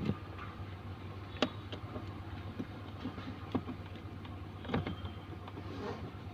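Scattered light clicks and taps of a screw and hand tools against the blower motor housing as it is screwed in place, two of them clearer about a second and a half in and near five seconds. A steady low hum runs underneath.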